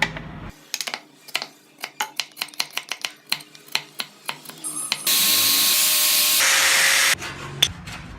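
A run of sharp, irregular taps of a hand tool on wood, about three or four a second, followed about five seconds in by two seconds of loud spraying hiss that cuts off suddenly.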